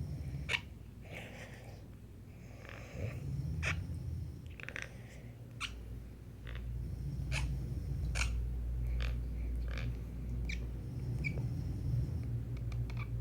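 A sleeping man snoring with a low rumbling breath while grinding his teeth hard (bruxism), giving sharp squeaky clicks one or two a second. The rumble grows louder about halfway through.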